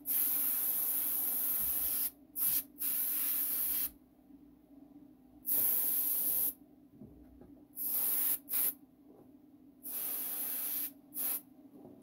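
Paint being sprayed in short bursts of hiss, about eight in all and each lasting from a fraction of a second to about two seconds, the longest right at the start. A steady low hum runs underneath.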